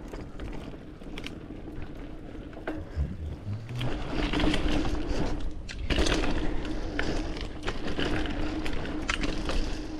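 Mountain bike rolling along a dirt trail: tyre noise with scattered rattling clicks and scrapes, and a steady buzz that gets louder about four seconds in as the bike picks up speed.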